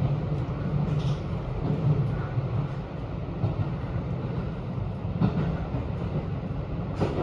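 Interior running noise of a JR 721 series electric train in motion: a steady low rumble with a few sharp clicks, two of them in the second half.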